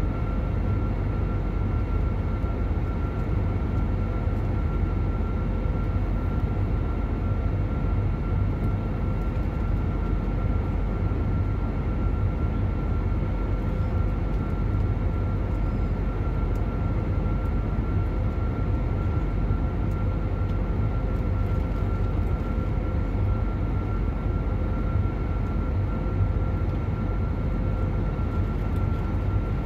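Steady in-flight cabin noise of an Airbus A321neo heard from a window seat beside the engine: the low rumble of its Pratt & Whitney PW1100G geared turbofan and the rush of air, with a steady hum and a higher steady whine running through it.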